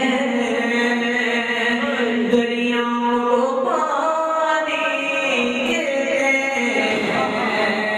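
A male voice chanting an Urdu manqabat, a devotional poem in praise of Imam Ali, in long melodic held notes over a steady low held tone.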